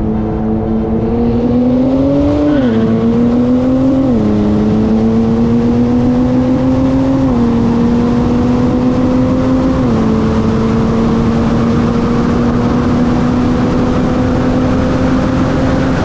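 Turbocharged car engine at full acceleration from a roll, its pitch climbing and then dropping at four quick upshifts, about 2.5, 4, 7 and 10 seconds in, and after that climbing only slowly at high speed. A rushing noise of wind and road runs underneath.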